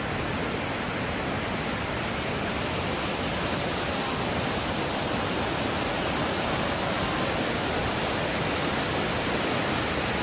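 Steady, even rush of water falling at MacKenzie Falls, a waterfall.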